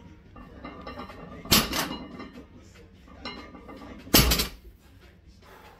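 A loaded barbell with bumper plates set down on a lifting platform twice, about two and a half seconds apart, each touchdown a sharp clank of bar and plates between deadlift reps.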